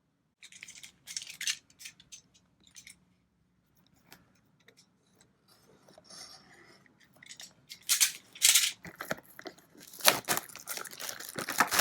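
Cardboard and plastic packaging of a trading-card booster box being handled and torn open: scattered rustles and crackles, louder and more frequent in the last few seconds.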